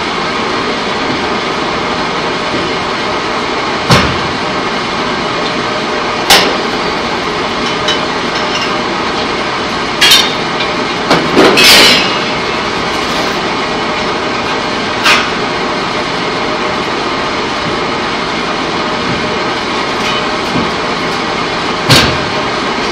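Pipe-coating line machinery running with a loud steady din, broken by sharp clanks every few seconds, with a cluster of them about halfway through.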